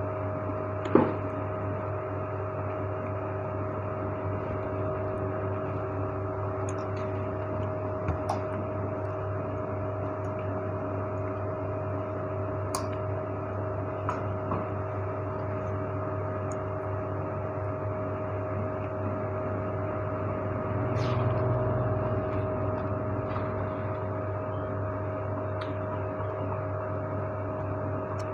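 Steady hum of a small electric desk fan's motor with a few fixed tones, broken by a few light clicks and taps from hands and crockery. A low rumble swells briefly about twenty-one seconds in.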